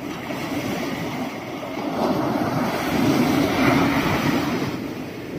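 Sea surf: a wave breaking on the beach and washing up the sand, swelling to its loudest about three seconds in and dying away near the end.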